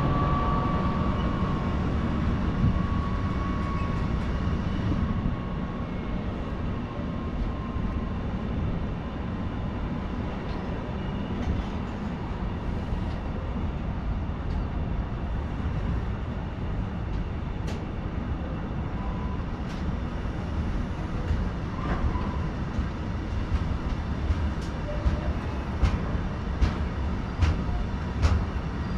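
A train moving through a railway station: a steady low rumble of wheels on rails. A high whine fades away over the first few seconds, and sharp clicks of wheels over rail joints come more often in the second half.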